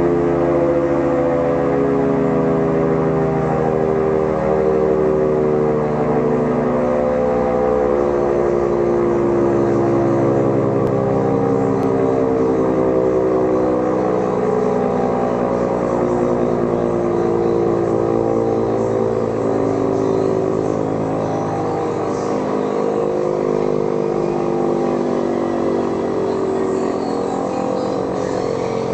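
Synthesized emergency-alert alarm drone: many layered pitches sounding together and slowly sliding lower, steady in loudness and easing off slightly near the end.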